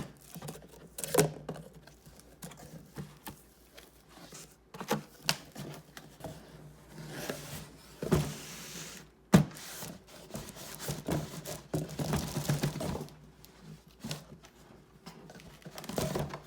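A cardboard box being handled and opened, with irregular knocks, clicks and taps, a stretch of rustling or sliding cardboard about seven seconds in, and scraping a few seconds later.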